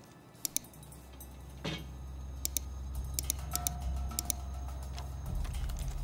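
Scattered keystrokes clicking on a computer keyboard, over low droning background music that gradually grows louder from about a second in.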